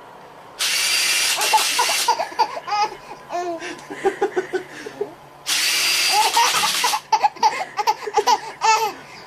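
A baby laughing in short bursts between two spells of a loud, steady whirring hiss. The hiss starts and stops abruptly, once about half a second in and once about five and a half seconds in, each lasting about a second and a half.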